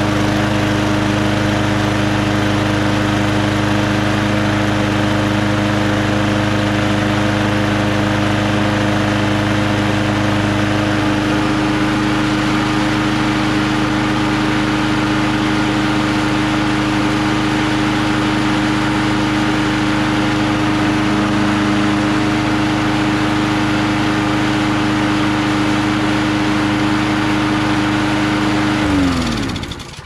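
Lawn-Boy walk-behind mower's small gasoline engine running steadily at one even speed, sounding healthy now that it has fresh gas. Near the end the engine is shut off and winds down to a stop.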